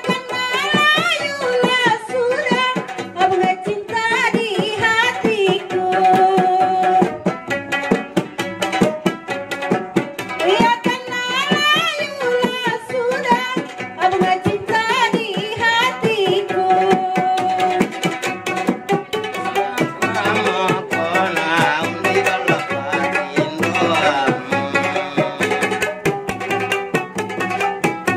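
Gambus Selayar folk music: a woman sings a batti-batti song in long, wavering, ornamented phrases over plucked gambus lutes and a frame drum beaten in a quick, steady pattern.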